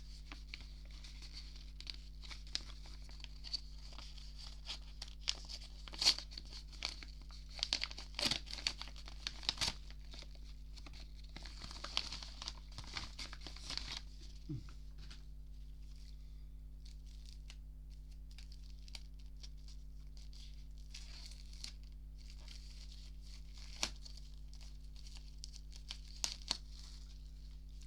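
Plastic wrapping being torn and crinkled off a CD package, a crackling rustle with sharp clicks, busy for about the first half and then only occasional crinkles.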